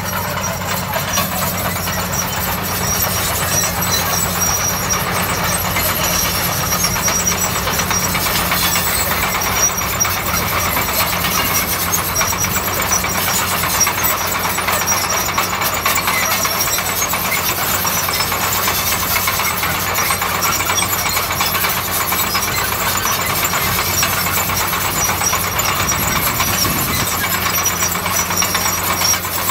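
Shantui crawler bulldozer's diesel engine running steadily under load, with a thin high squeal above it.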